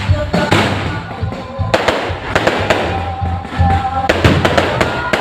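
Fireworks salvo: a rapid, irregular string of loud bangs and crackles, with music playing underneath.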